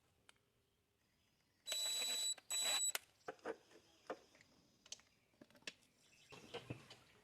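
Two short hissing bursts with a steady high whistle, like air or spray forced through a small passage, then small metal carburetor parts clicking and clinking as they are handled and fitted back together.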